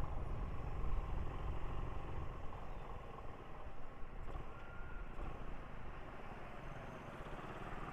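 Motorcycle engine and surrounding road traffic, a steady low rumble heard while riding slowly in heavy traffic.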